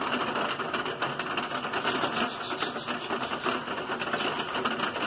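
Heavy rain pelting down onto a roof overhang and paved driveway, a dense, steady rapid patter.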